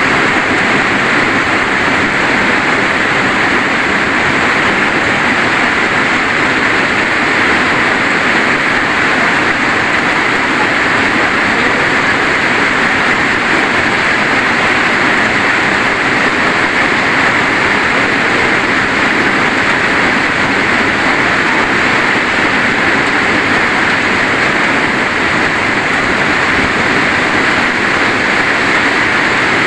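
Rain falling steadily: a loud, even hiss that holds unchanged, with no single drops or knocks standing out.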